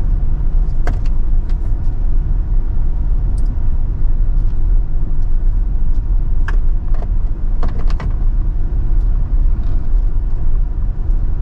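Car driving slowly over a rough, unpaved road surface: a steady low rumble of engine and tyres, with a few short knocks and rattles as it goes over bumps.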